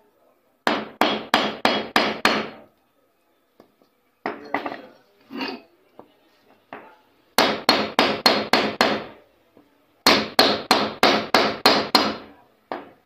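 Hammer blows on a wooden block, driving a ball bearing into the metal end plate of a water-pump motor. Three bursts of quick strikes come at about three a second, with a few lighter knocks between the second and third bursts.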